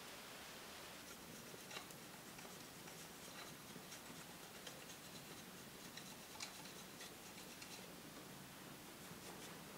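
Faint, irregular ticks and light scratching over a soft steady hiss, from a small wood fire crackling and a knife working a wooden skewer stick.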